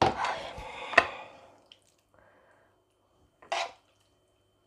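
A spoon scraping and scooping cooked mushrooms out of a frying pan, with a sharp clink about a second in, then a brief second scrape about three and a half seconds in.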